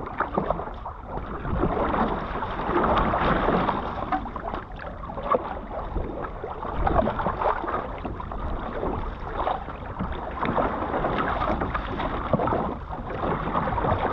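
Water splashing and sloshing around a one-person outrigger canoe as it is paddled through choppy sea, with irregular splashes from the paddle blade entering and leaving the water. A steady low rumble of wind on the microphone runs underneath.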